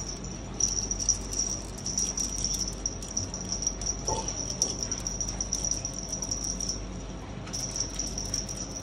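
A steady high-pitched insect trill that breaks off briefly about seven seconds in, over many small clicks and scuffles of kittens' paws and claws on a tiled floor as they leap at a feather wand toy.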